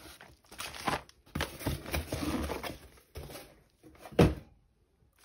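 Plastic air-pillow packing and a cardboard shipping box rustling and crinkling as a package is unpacked by hand, then a single sharp knock about four seconds in.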